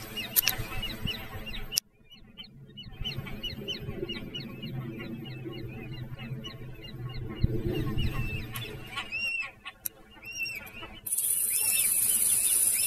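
Birds calling over and over in short, arched chirps, a little louder near the end. A steady high-pitched hiss comes in suddenly about eleven seconds in.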